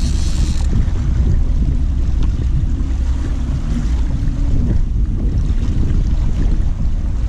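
Boat motor running steadily under wind and water noise, with a brief high-pitched buzz right at the start.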